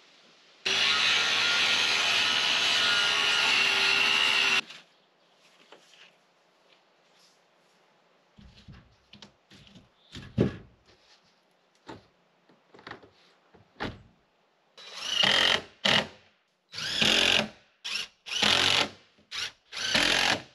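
Cordless drill running steadily for about four seconds, then a few light knocks, then a series of short trigger bursts near the end, driving screws into OSB sheathing.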